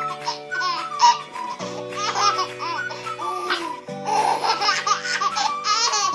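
A baby laughing in repeated bursts of giggles and belly laughs, over background music of held chords that change twice.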